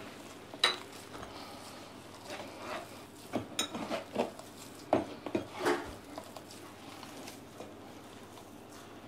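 A drinking glass clinking and knocking against mixing bowls as flour is scooped out with it, while hands work soft dough in a glass bowl. One sharp clink comes about half a second in, then a run of knocks and clinks between about three and six seconds in.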